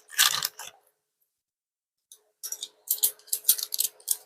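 Rustling and clicking of plastic packaging and small plastic items being handled, in short bursts, with a second and a half of dead silence in the middle.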